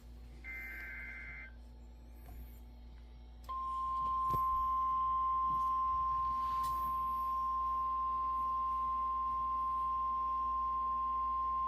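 NOAA Weather Radio broadcast: about half a second in, a one-second burst of two-pitch warbling SAME digital data. Then, from about three and a half seconds in, the steady 1050 Hz warning alarm tone, which signals that a new warning is about to be read.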